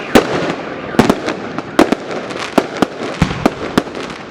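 Fireworks salute going off: an irregular run of sharp bangs, about three a second, over a continuous crackle.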